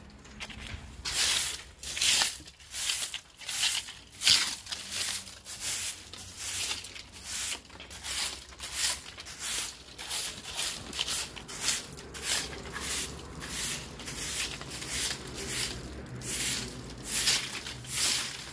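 Straw broom sweeping dry mango leaves across a concrete floor: a rhythmic swish, about one and a half strokes a second.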